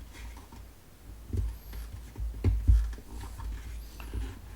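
Handling noise from work on a disassembled fan: irregular low bumps and a few light clicks, with faint brief squeaks.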